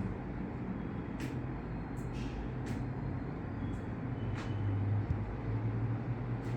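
Steady low mechanical hum, with several short, faint clicks or rustles scattered through it.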